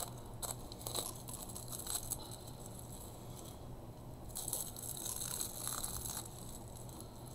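Clear plastic packaging crinkling and rustling as it is handled, with a few light clicks in the first two seconds and a longer stretch of crinkling around the middle.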